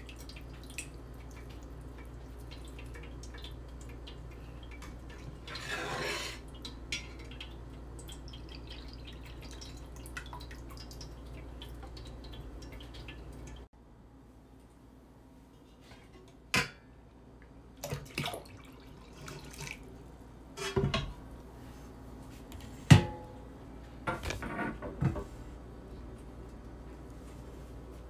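Whey dripping and trickling from ayib curds draining in a small fine-mesh tea strainer, with a few sharp knocks and clinks of the strainer and utensils against a bowl in the second half. A steady low hum cuts off abruptly about halfway through.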